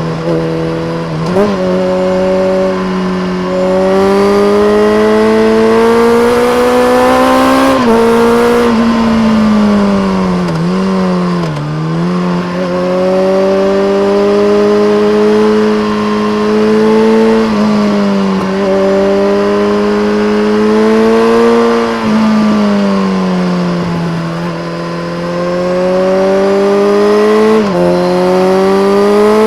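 BMW K1300R's inline-four engine through a full Akrapovic race exhaust with a dB killer, ridden hard: the pitch climbs steadily under throttle and drops sharply at a series of gear changes, with a longer fall and rise about a third of the way in as the throttle is eased off and opened again.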